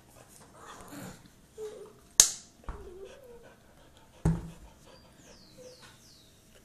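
Dog panting and giving brief whines. A sharp clack comes about two seconds in and a heavy thump a couple of seconds later.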